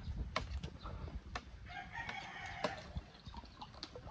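A rooster crows once, a call of about a second that starts just under two seconds in. Spoons click against plates around it.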